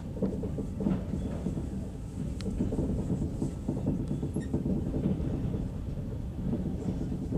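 Passenger train rolling slowly, heard from inside the coach: a steady low rumble of wheels on rails, with a faint click about two and a half seconds in.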